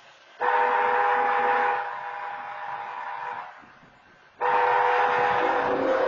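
BNSF locomotive air horn sounding two long multi-note blasts, the long-long opening of its signal for a grade crossing. The first blast starts about half a second in, drops in volume after about a second and a half, and stops about three and a half seconds in. The second starts about a second later and is still sounding at the end.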